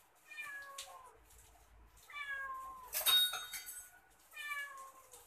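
Tabby cat meowing three times, each meow falling in pitch, begging after being drawn by the smell of frying fish. A brief sharp noise about three seconds in is the loudest sound.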